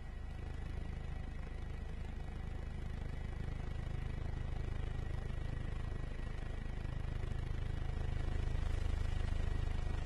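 Helicopter rotor and engine noise: a rapid low thudding with a thin steady whine above it, slowly growing louder.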